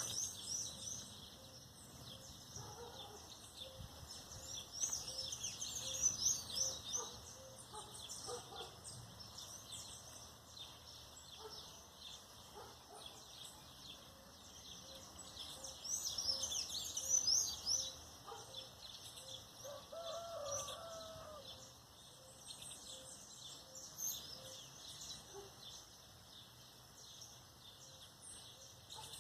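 Morning birdsong: many small birds chirping and twittering, busiest a few seconds in and again just past the middle. A rooster crows once about two-thirds of the way through, and a soft low note repeats steadily underneath.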